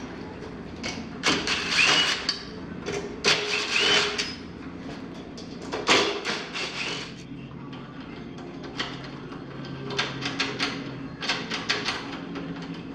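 Rustling and handling noise with two short squeaks, then a run of light clicks and rattles from hand work on an aluminum storefront door's handle and lock hardware.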